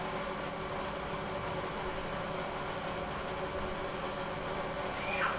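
A steady machine hum with several steady tones, and a short falling squeak near the end.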